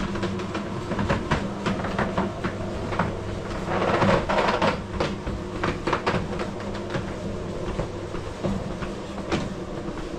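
Roller shutter garage door rising, its metal slats rattling and clicking continuously as they roll up, over a steady hum.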